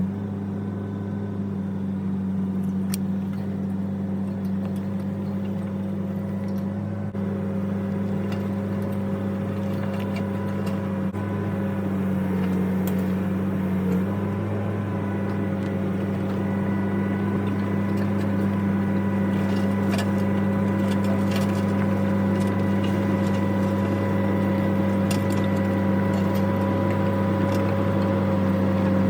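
Excavator's diesel engine running steadily while towing a heavy lathe on a log hauler, its pitch shifting slightly about halfway through, with a few faint clicks.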